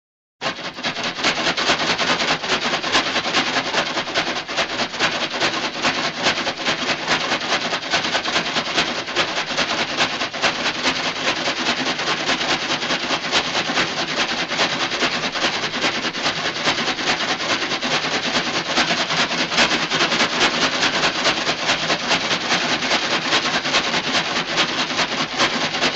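A dense, continuous crackling noise made of many rapid clicks, starting abruptly and cutting off suddenly.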